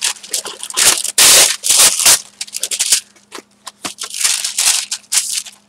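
Wax paper rustling and crinkling as it is pulled out and handled, a run of irregular scrapes with the loudest about a second in.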